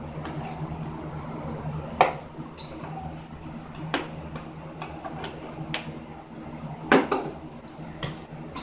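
Sharp metallic clinks and taps from a Phillips screwdriver and small screws working on a Honda XR50's bodywork fasteners, the loudest about two, four and seven seconds in, over a steady low hum.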